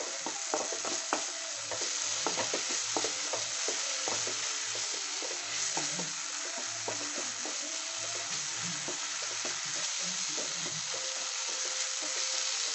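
Green beans and tomato sautéing in hot oil in a nonstick kadai: a steady sizzle, with a wooden spatula stirring and scraping the pan in frequent short clicks and scrapes.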